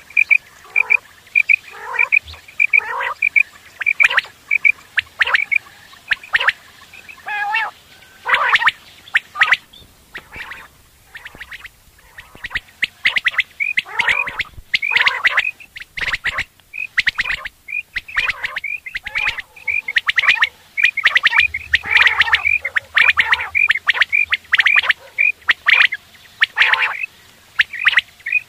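Quails calling: quick runs of short, high chirping notes, several a second, mixed with louder, harsher calls that come in clusters.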